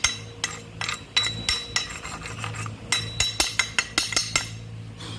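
Quick, irregular light metallic taps, several a second with a short pause midway, over a steady low electrical hum.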